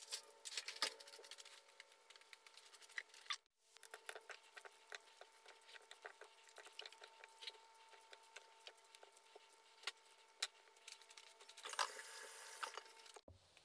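Faint clatter of dishes handled in a dishwasher rack, then a small knife slicing raw peeled potatoes by hand over a plate: soft, irregular clicks as each slice is cut and drops.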